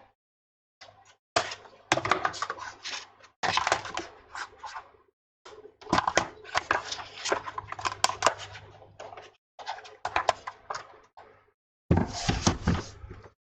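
Hard objects clattering and knocking in irregular bursts of rapid clicks, with short pauses between them: spare parts and tools being handled and rummaged through while searching for a spare iPad housing.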